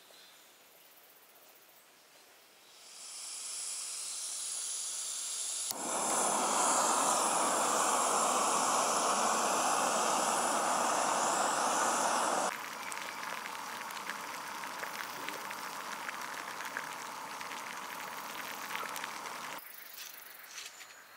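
Backpacking gas canister stove: gas hissing as the valve is opened, then the burner catching about six seconds in and burning with a loud, steady rush. The rush drops to a lower level about halfway through and stops near the end.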